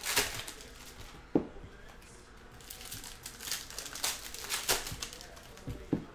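Trading-card packaging crinkling and tearing as Donruss Basketball hobby boxes and packs are opened, with irregular rustles and two short soft thumps.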